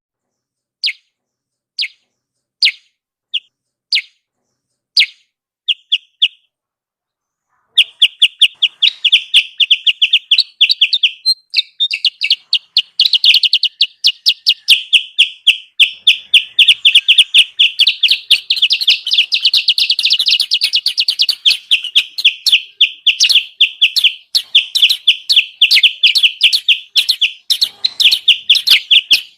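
Kutilang sutra lure call (suara pikat): bird chirps around 3–4 kHz, at first single notes spaced out, then, after a short pause, a fast continuous run of chirping that goes on to the end, the kind of call used to draw wild kutilang sutra down to a trap.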